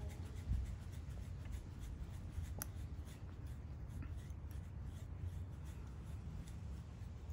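Tying thread being wrapped by hand around a bucktail jig's collar to tie in hackle feathers: faint rubbing and soft ticks, with one sharper click about two and a half seconds in, over a steady low rumble.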